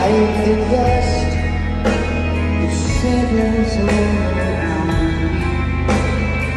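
Live rock band playing a slow song through an arena PA: held keyboard and guitar chords over a steady deep bass, changing chord every second or two, with a man singing into a microphone.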